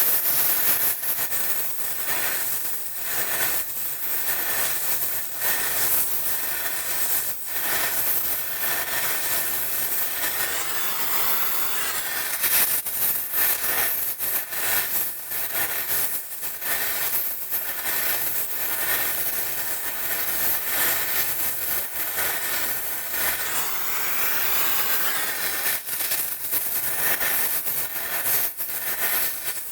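Gas brazing torch flame hissing steadily as a copper pipe joint is brazed.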